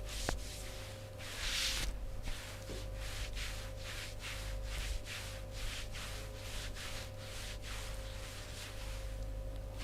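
Hands rubbing over skin in quick, rhythmic massage strokes, about two or three a second, over a steady low electrical hum.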